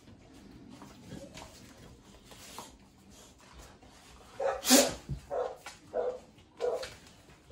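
Puppy barking in play, starting a little past halfway: one loud bark, then a run of shorter barks about two-thirds of a second apart.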